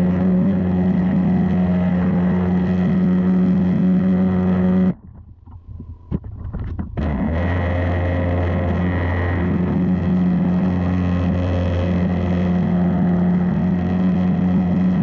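Pressure washer running steadily, its turbo nozzle blasting water onto terracotta roof tiles. About five seconds in, the sound drops away suddenly for roughly two seconds, then comes back.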